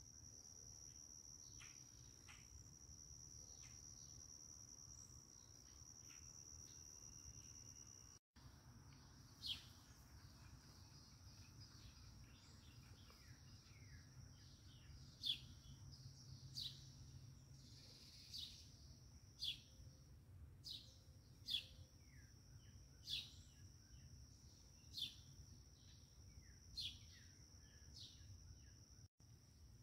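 Faint summer yard sounds: a steady high-pitched insect drone throughout, and, from about a third of the way in, a bird calling over and over with short, sharp notes that drop in pitch, one every second or two.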